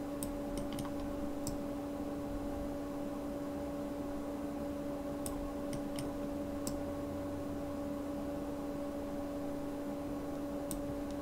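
A few sharp clicks of a computer mouse and keyboard being worked, in two clusters (right at the start and about halfway through), over a steady low hum.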